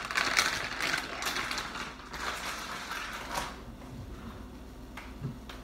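Plastic food bag crinkling as it is handled, dense and loudest over the first two seconds, with a last rustle about three and a half seconds in, then only a few faint knocks.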